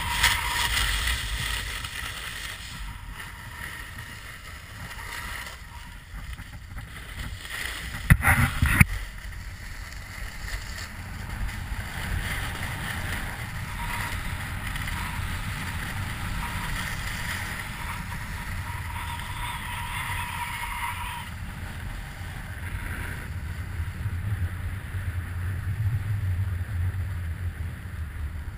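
Snowboard sliding and carving over snow, with wind rushing over a GoPro's microphone held out on a pole. A few sharp knocks sound about eight seconds in.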